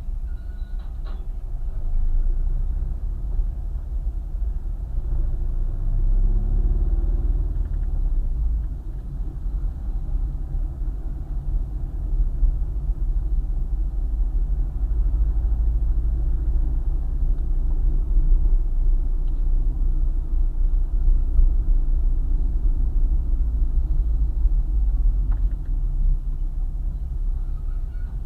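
Car driving along a highway: a steady low rumble of road and engine noise, with a brief rising engine note between about six and eight seconds in.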